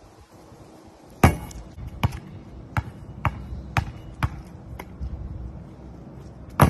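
Basketball bouncing on asphalt: a loud hard bounce about a second in, then steady dribbling at about two bounces a second, and another sharp knock near the end.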